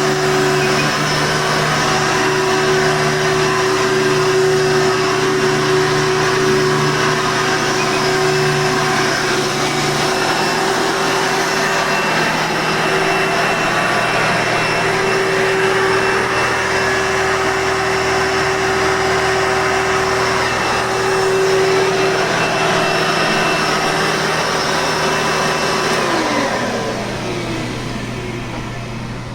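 The blue Hoover Soft N Light upright vacuum cleaner running with a steady motor whine, its tone shifting slightly about ten seconds in. Near the end it is switched off and the motor winds down, the pitch falling away.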